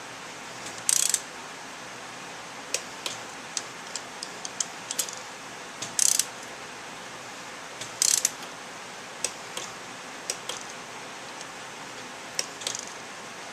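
A torque wrench ratcheting and clicking as the cylinder head nuts are tightened to 9 foot-pounds in a crisscross pattern. There are three short, louder bursts of rapid ratchet clicks about a second, six seconds and eight seconds in, with scattered single clicks between them.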